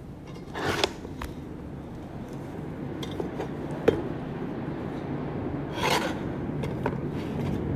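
Handling noise from a non-stick stovetop waffle pan being moved about on cardboard and packaging: rubbing and scraping, loudest about a second in and again near six seconds, with a sharp click near the middle, over a steady low background hum.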